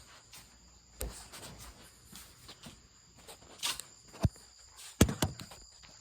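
Irregular knocks and clunks a second or so apart, loudest twice in quick succession about five seconds in, over a steady high chirring of crickets.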